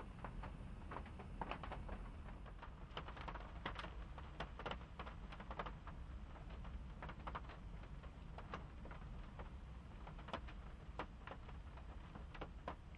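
Faint, irregular light clicking and crackling, several clicks a second, over a steady low hum.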